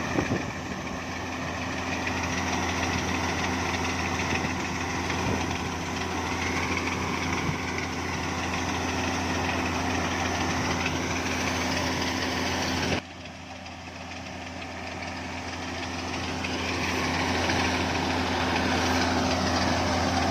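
Engine of wheat-harvesting farm machinery running steadily. About two-thirds of the way through, the sound drops suddenly and then gradually builds back up.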